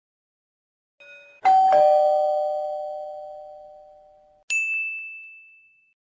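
A two-note descending ding-dong chime, like a doorbell, struck about a second and a half in and ringing out slowly for about three seconds, then a single higher ding that fades away near the end.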